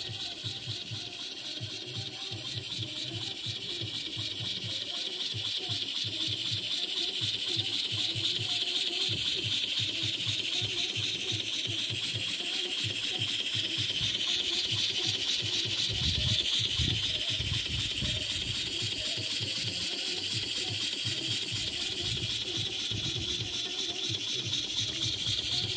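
Model horizontal mill engine running fast and steadily, its exhaust beating in a quick, even chuff over a constant hiss. It grows a little louder over the first several seconds, then holds steady.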